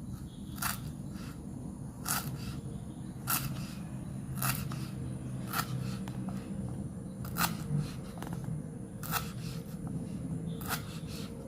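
Lemongrass stalks being cut into pieces: a crisp cut about once every second, over a low steady hum.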